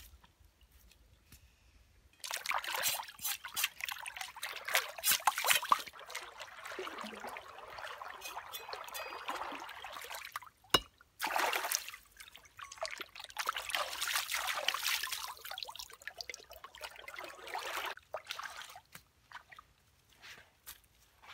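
Stream water sloshing and splashing as a raw pig's leg is swished and washed in it by hand, in long stretches with short pauses, after a quiet first two seconds. One sharp knock a little before the middle.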